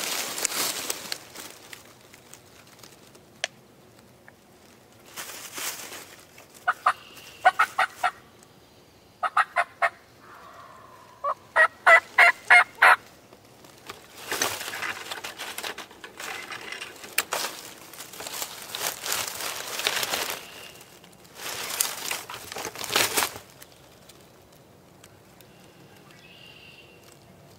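Turkey yelping in three runs of short, sharp notes: about five, then three, then about eight louder ones roughly halfway through. Bursts of rustling noise come between the runs and through the second half.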